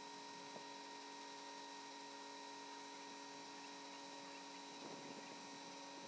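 Faint steady hum made of several held tones.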